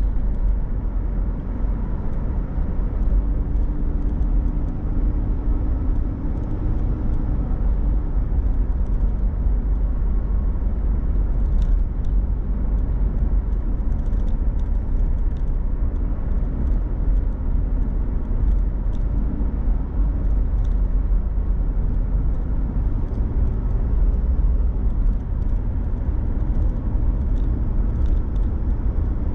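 A car driving along a city street: a steady low rumble of engine and road noise, with a faint engine hum that drifts slightly in pitch.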